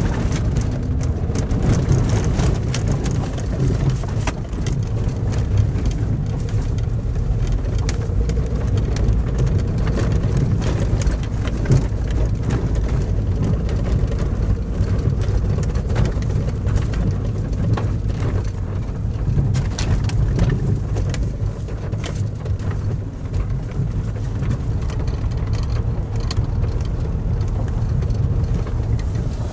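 A car driving along a rough gravel road, heard from inside the cabin: the engine hums low while the tyres crunch over the gravel with frequent small clicks and knocks.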